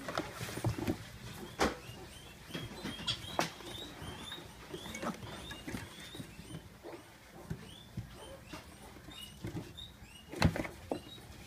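Pot-bellied piglets feeding from a steel bowl: scattered clicks and smacks from eating and hooves on the plastic bin, with many short high squeaks. A louder knock comes about ten seconds in.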